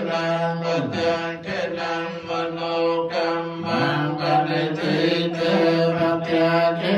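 Buddhist chanting, voices held together on one steady note, briefly dipping in pitch about a second in and again near four seconds.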